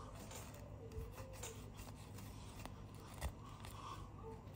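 Faint scraping and a few small clicks of a tool prying at the torn edge of a PVC stretch ceiling where the film is tucked into its edge profile.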